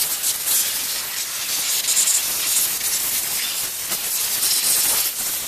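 Compressed-air blow gun hissing steadily as it blasts nest debris out of a lawn tractor engine's cooling fins and flywheel area.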